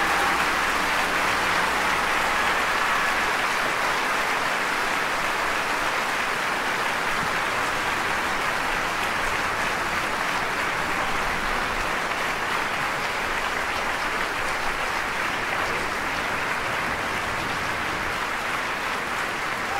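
Theatre audience applauding steadily, the dense clapping easing off slightly toward the end.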